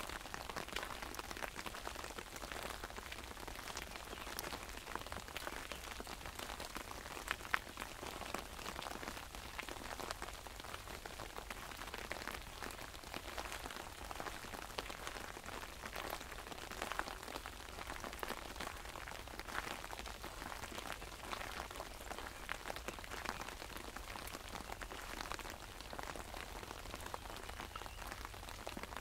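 Rain falling on an umbrella overhead: a steady, dense pattering of many small drop hits, with one louder drop about seven and a half seconds in.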